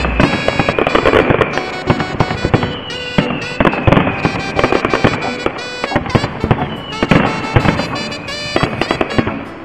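Aerial firework shells bursting in a dense, continuous barrage, with many sharp bangs and crackles in quick succession.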